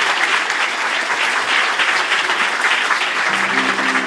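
Audience applauding. About three seconds in, a sustained instrumental chord comes in under the clapping.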